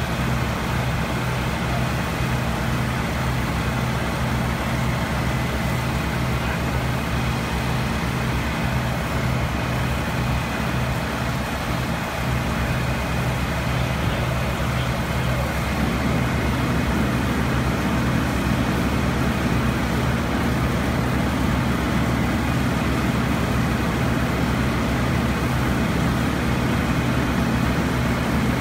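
Fire engine's engine running steadily with a low hum, with a fuller rumble joining in and getting a little louder about halfway through.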